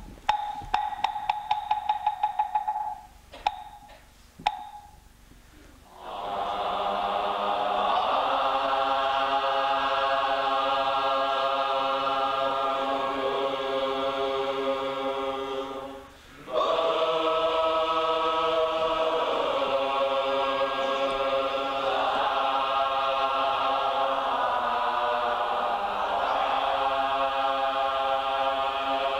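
A moktak (Korean wooden temple block) struck in a fast roll, then a few single strokes. From about six seconds in, a group chants together in a steady many-voiced drone, with one brief pause for breath midway.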